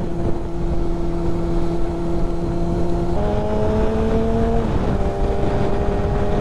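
1996 Yamaha YZF600R's inline-four engine running under way at steady revs with a heavy rush of wind. About three seconds in the revs jump up and climb, then drop back a little near five seconds.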